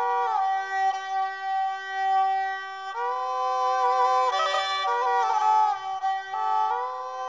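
Instrumental music: a wind-instrument melody moving in steps up and down over a steady held drone.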